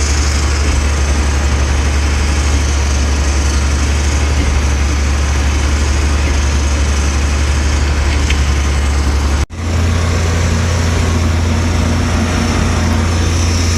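Tractor engine running steadily while pulling a hay baler: a loud, even low drone. It cuts off abruptly about nine and a half seconds in and comes straight back a little higher in pitch.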